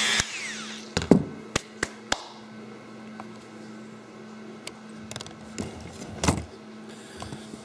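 Dremel rotary tool whining down in pitch as it spins to a stop, then several sharp knocks and taps as the cut copper-clad board and tool are handled on the bench, over a steady low hum.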